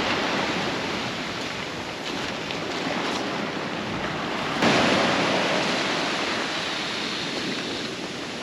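Ocean surf. A wave crashes suddenly a little past halfway and its wash slowly fades.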